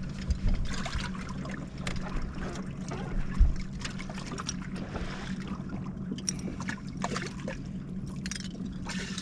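Water trickling and splashing on a fishing boat, with scattered clicks and knocks of handling over a steady low hum; one louder knock about three and a half seconds in.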